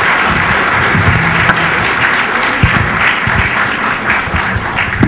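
Audience applauding steadily after a speech.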